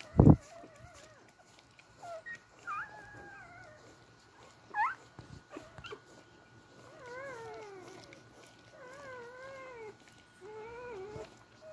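Newborn beagle puppies whimpering and squeaking while nursing: a sharp rising squeak about five seconds in, then a run of thin, wavering whines near the end. A loud thump comes right at the start.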